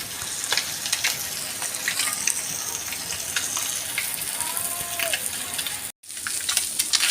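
Fish frying in hot oil in a pan: a steady sizzle with scattered crackles and pops. It cuts out for an instant near the end.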